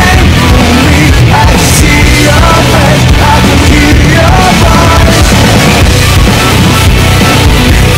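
Loud rock background music with a steady drum beat.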